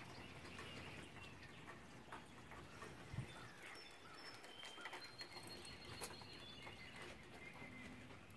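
Faint birdsong: scattered short chirps and whistles over a steady background hiss, with a single soft low thump about three seconds in.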